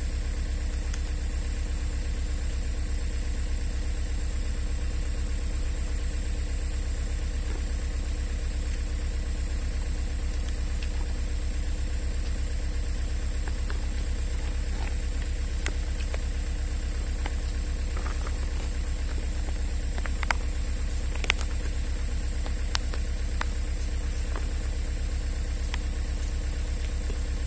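An engine idling steadily with a low, even throb. A few faint clicks sound over it.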